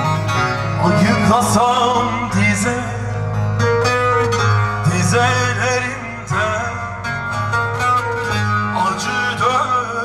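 Live Turkish folk music: a bağlama and a Korg Pa800 arranger keyboard playing an ornamented melody over a steady low bass.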